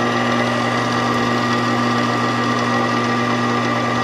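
Farberware 4.7-quart stand mixer's electric motor running at a steady speed, a constant hum with a high whine over it.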